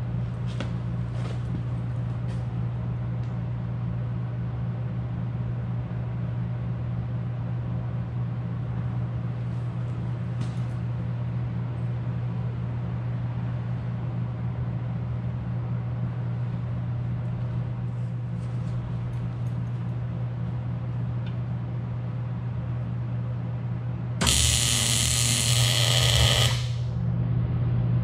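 A truck engine idles steadily. About three-quarters of the way in, a MIG welder tacks the tailgate latch to the steel gate, a loud crackling burst lasting about two seconds.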